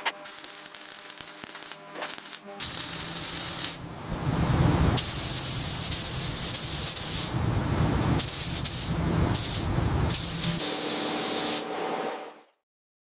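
Loud hissing spray, like a paint spray gun, in several abruptly cut segments, with a pitched hum under it at the start and again near the end. The sound cuts off abruptly about twelve and a half seconds in.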